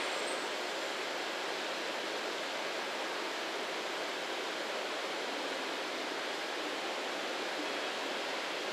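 Steady, even rushing background noise of an open rail yard, with no distinct train sounds or other events standing out.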